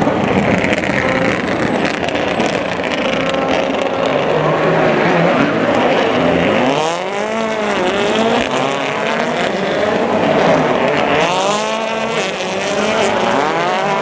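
Rally cars racing at full throttle, their engines revving up and down through gear changes, with tyre squeal as they slide through the corners. About seven seconds in, and again near the end, an engine's pitch sweeps up and down as a car passes close.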